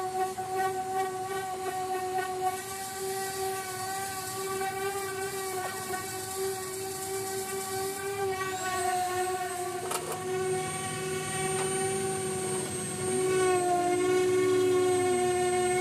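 Air-powered orbital sander running against the cab's painted panel, a steady humming whine. A thin high whistle joins about halfway, and near the end a lower tone slides down briefly as the pad is pressed and moved.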